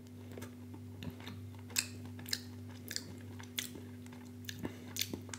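A person chewing a mouthful of plant-based vegan cheese slice: irregular soft wet clicks and smacks of the mouth, over a steady low hum.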